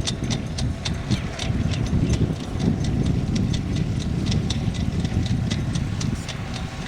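Low rumble of wind and water on a sailboat, heard through a GoPro mounted on the inner forestay, with quick irregular ticks or rattles, several a second.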